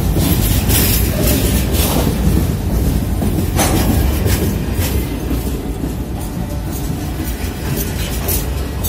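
Freight train of covered grain hopper cars rolling past close by: a steady low rumble of steel wheels on the rails, with irregular clicks and clanks from the wheels and cars.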